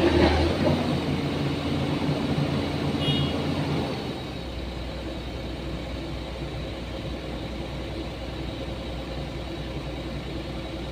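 Excavator engine running steadily, louder for the first four seconds and then settling to a lower, even level.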